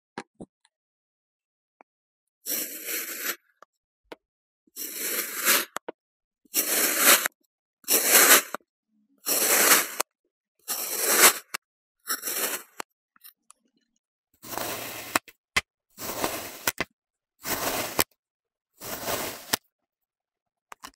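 Kinetic sand being cut: about eleven separate crunchy cutting strokes through the packed sand, each under a second long, with short silent pauses between them and a longer pause about halfway through.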